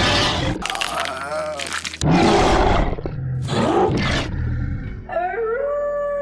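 Monster-like wolf roars and growls in several loud rough bursts, then, about five seconds in, a wolf howl that rises and holds one long steady note.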